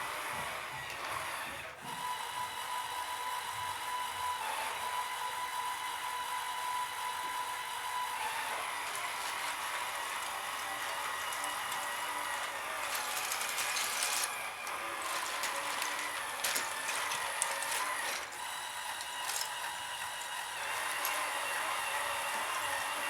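Liebherr PR 754 crawler dozer working: steel tracks clattering and clicking, with a steady machine whine that shifts in pitch several times.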